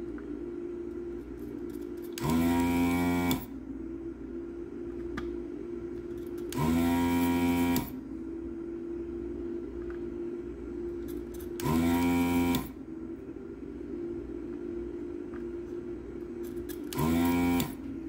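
Desoldering gun's vacuum pump running in four short bursts of about a second each, each starting with a rising whine as the motor spins up, sucking molten solder off circuit-board pins. Under it runs the steady hum of a fan.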